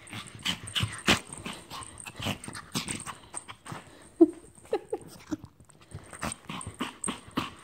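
Japanese Chin dog greeting its owner in excitement: a busy run of short snuffling and rubbing noises, with a few brief whimpers about four to five seconds in.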